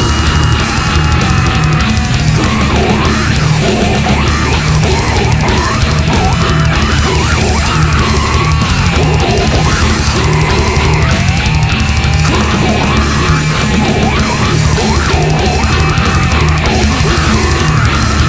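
Death metal recording: fast, dense drumming under heavily distorted guitars, loud and unbroken, with high sliding guitar lines over it.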